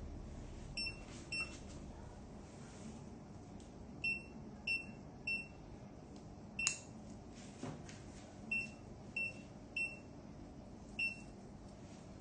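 Short, high beeps from a patient monitor, about one every 0.6 s, coming in runs of two or three with gaps between. One sharp click about halfway through.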